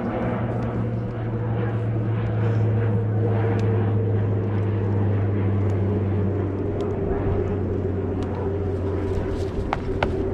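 A steady low engine drone that swells to its loudest a few seconds in and then slowly eases off, with a few sharp knocks near the end.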